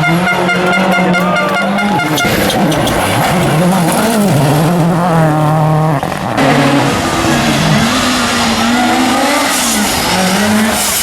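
Rally car engines running hard on a special stage, their pitch climbing and dropping as they rev, shift and back off. The sound changes abruptly about six seconds in.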